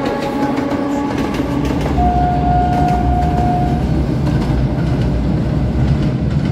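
A passenger train rolling past and onto a steel girder bridge: a steady low rumble with wheels clattering over the rail joints. A single steady high tone is held for about two seconds, starting about two seconds in.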